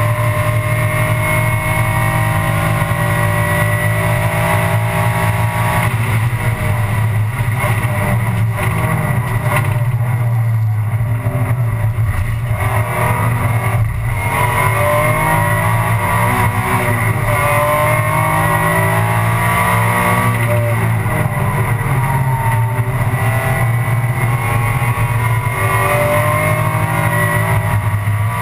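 Alfa Romeo 156 GTA race car's engine heard inside the cockpit at racing speed, its pitch climbing through the gears and dropping back several times, with road and wind noise underneath.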